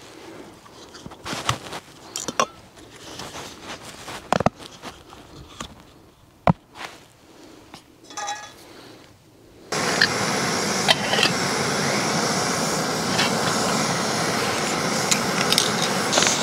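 Metal camping cookware being set down on rock, with scattered clinks and knocks. About ten seconds in, a canister gas stove's burner is lit and runs with a steady loud hiss.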